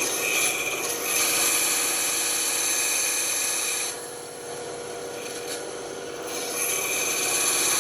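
Band saw running with its blade cutting through wood. The cutting noise eases about four seconds in and picks up again near the end, as the cut works little by little around a curve.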